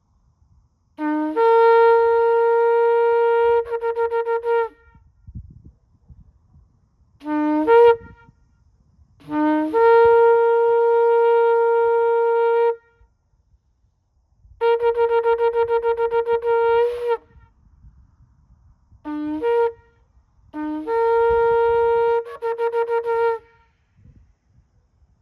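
A shofar (ram's horn) being blown in a series of blasts. Each blast starts on a brief lower note and jumps up to the main note. Some are held for two to three seconds and end in a few quick broken notes, some are short, and one in the middle is a run of rapid staccato notes.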